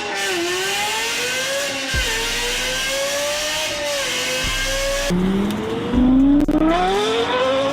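Lexus LFA's naturally aspirated, Yamaha-tuned V10 accelerating hard. The exhaust note climbs in pitch, with short drops at gear changes about 2 s and 4.5 s in. About 5 s in, a fresh pull starts from low revs and rises steeply.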